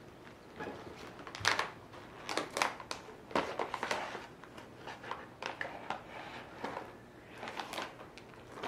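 Plastic bag of caramel popcorn crinkling in irregular bursts as it is handled.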